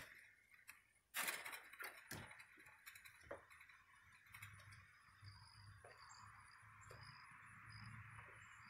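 Near silence with a few faint clicks and knocks in the first few seconds, the loudest about a second in: a dog moving about on wooden deck boards. A faint steady high hiss runs underneath.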